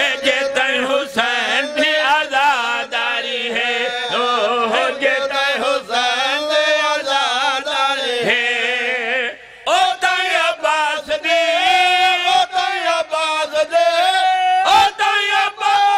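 A zakir chanting a devotional verse in Urdu-Punjabi, with other men's voices joining in. After a brief break about nine seconds in, the chant resumes at a higher pitch.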